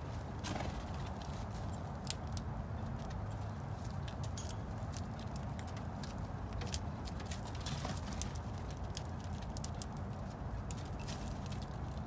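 Scattered small clicks and taps, a few sharper ones about two seconds in and again around eight seconds, over a steady low hum, from small animals feeding in a back yard.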